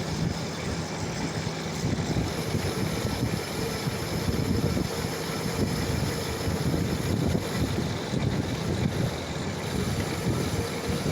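Metal lathe running steadily, its motor giving a constant hum while the tool cuts a groove in the workpiece.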